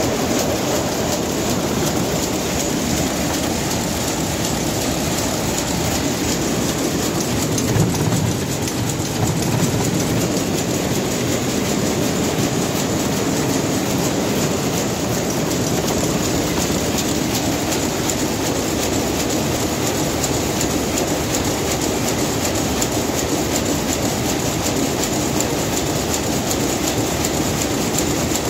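Rapier weaving looms running, a steady dense fast mechanical clatter, with a brief louder bump about eight seconds in.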